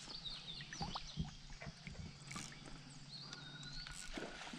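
Faint birdsong: thin high whistled calls near the start and again about three seconds in, over scattered small clicks and knocks.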